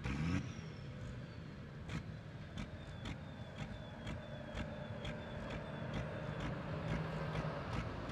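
Diesel pulling tractor's engine revs up briefly at the start, its pitch rising, then runs steadily while a faint high whine slowly falls away. A sharp ticking sounds about twice a second throughout.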